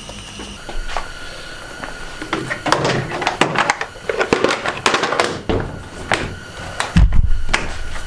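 Clatter and knocks of a Jeep Wrangler JK's hood and plastic snorkel body being handled as the snorkel is offered up to the freshly cut hood opening. A heavy thump comes about seven seconds in as the hood is lowered onto it.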